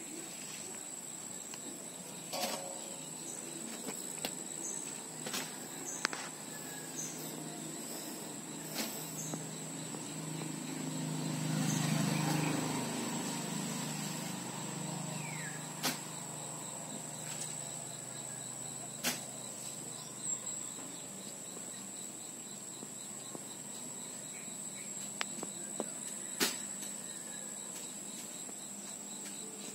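Outdoor ambience with a steady, high, thin insect trill. A low rumble swells and fades near the middle, and a few sharp clicks come and go.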